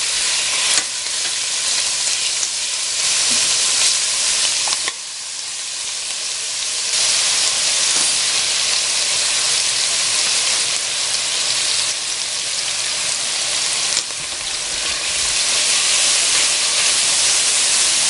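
Julienned chicken breast sizzling as it fries in hot vegetable oil in a stainless steel pot, stirred with a wooden spatula. A steady frying hiss with a few sharp clicks.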